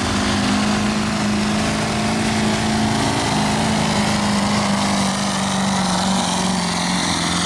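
Ford Super Duty pickup's turbocharged diesel engine held at high, steady revs under full load while dragging a pulling sled.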